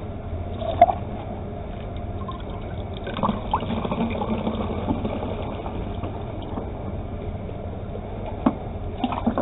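Homemade liquid laundry soap being poured from a handled jug through a filler into a recycled bottle, a steady pour with a light knock about a second in and another near the end.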